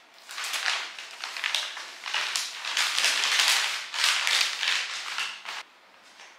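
Bubble mailer envelope and paper crinkling and rustling in short, irregular bouts as wrapped parcels are handled and slid into the mailer. The rustling stops abruptly near the end.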